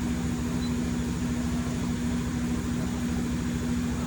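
Steady machine hum from a running CNC milling machine, with one constant low tone and a fine fast flutter beneath it.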